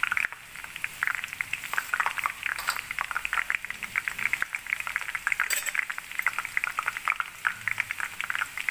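Bhavnagari gathia, strands of gram-flour dough, deep-frying in hot oil in a kadhai: a dense, steady crackle and bubbling of frying. The strands are freshly dropped and still cooking up towards the surface of the oil.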